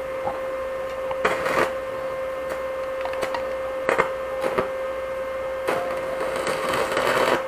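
Stick-welding arc striking and crackling in several short spurts, the longest near the end, over a steady electrical hum.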